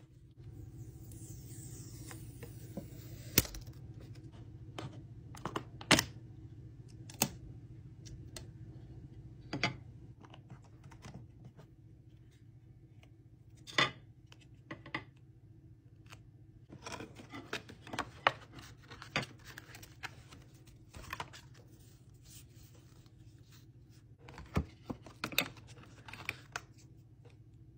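Unboxing of an iPod touch: plastic wrap and cardboard rustling and scratching, with scattered sharp clicks and taps as the box, the plastic-wrapped iPod and the plastic earbuds case are handled. A scratchy hiss in the first couple of seconds, over a steady low hum.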